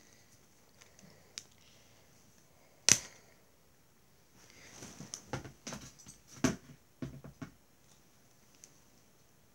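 Close handling noise: one sharp knock about three seconds in, then a couple of seconds of rustling and scattered bumps and clicks from about five to seven and a half seconds in.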